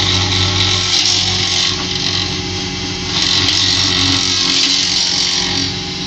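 Homemade jointer running steadily, its cutterhead planing a wooden board fed under a pressure roller. The cutting hiss comes in two stretches, in the first couple of seconds and again from about three to five and a half seconds in.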